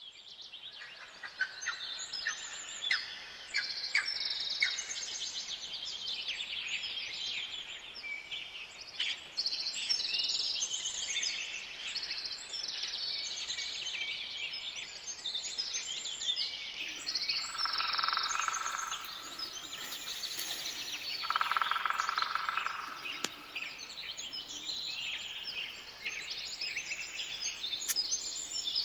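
A chorus of many songbirds singing, with short high chirps overlapping throughout. Twice, about two-thirds of the way through, a lower, louder call stands out for a second or so.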